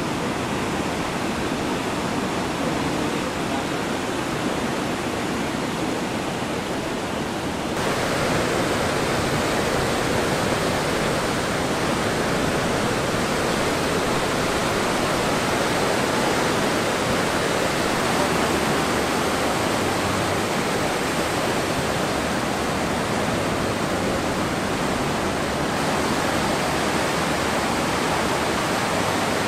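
Ocean surf breaking on a beach, a steady wash of noise. About eight seconds in it turns suddenly louder and brighter.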